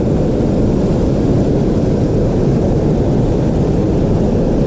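Steady rush of creek water pouring in, a constant low-heavy roar with no breaks.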